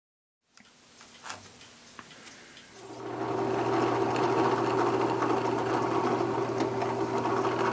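A few light clicks, then about three seconds in a bandsaw's electric motor is switched on and comes up to a steady running hum, set to cut the corners off a small glued-up oak piece.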